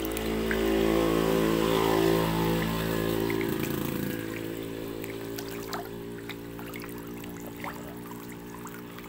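Catfish splashing and thrashing at the water surface as they take floating pellet feed, with small scattered splashes. Under it runs a steady droning hum, strongest in the first few seconds and fading after.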